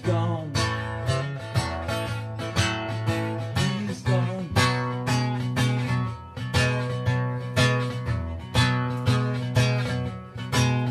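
Acoustic guitar strummed in a steady rhythm, about three or four strums a second, in an instrumental passage between sung lines.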